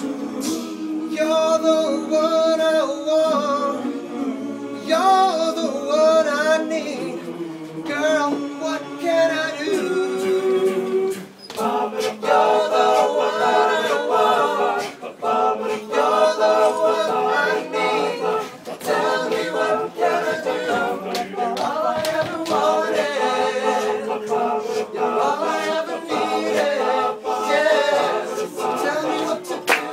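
All-male a cappella group singing in close harmony, a lead voice over backing voices. About twelve seconds in the sound thickens into fuller, louder chords.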